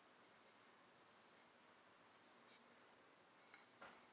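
Near silence: quiet room tone with faint high chirps repeating about twice a second, and a soft tap near the end.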